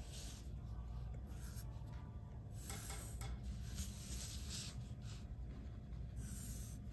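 Pencil drawing straight lines on paper: a series of short scratching strokes, one after another, over a faint steady hum.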